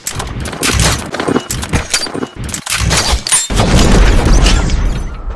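Sound effect of a rapid, ragged burst of gunfire. About three and a half seconds in, a loud low boom takes over and rumbles away.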